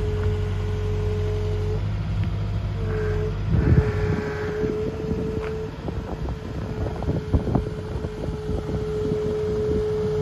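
A Caterpillar 306 CR mini excavator's diesel engine runs steadily under a steady whine. A loud knock comes about three and a half seconds in, and a run of sharp clanks and knocks follows between about six and eight seconds in as the bucket moves and the machine tracks.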